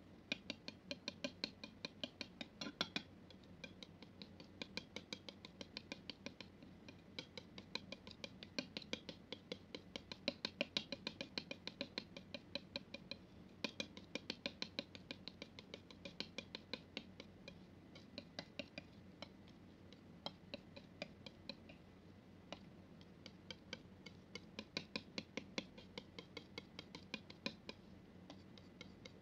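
Metal palette knife spreading and folding thick, wet paint on a smooth flat surface: sticky clicks and taps, several a second, coming in runs with short pauses.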